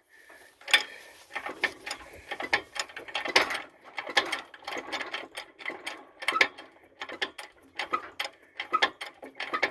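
Homemade scrap-metal crane being worked to lift, giving a run of irregular metallic clicks and clanks, a few a second. The boom is rising only very slowly, and the chain has come unhooked from the load.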